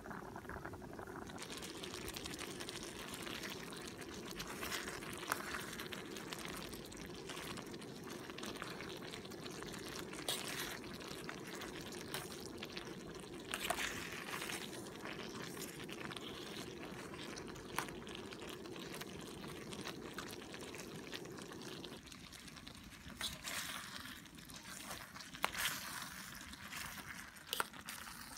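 Spaghetti and liquid simmering and bubbling in an aluminium mess tin, with a metal fork clinking and scraping against the tin as it stirs the pasta. The steady bubbling underneath drops away about three-quarters of the way through, leaving the fork's scrapes and clicks.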